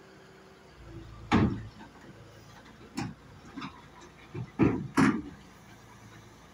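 Heavy metal clanks and knocks from a tracked excavator shifting on a steel lowboy trailer deck, about six of them, with the loudest about a second in and two more close together near the end. The excavator's diesel engine runs low underneath.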